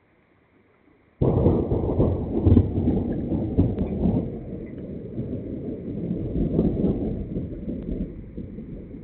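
A sudden loud low rumble that starts about a second in and slowly dies away over several seconds.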